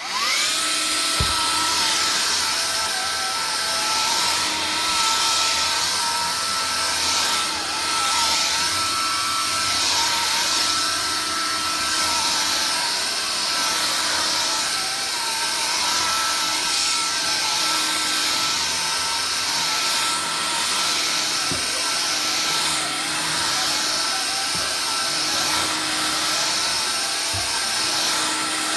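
Vax Air Cordless Lift stick vacuum switching on, its motor spinning up, then running steadily with a high whine over a loud rush of air. A few short knocks come as it is pushed about.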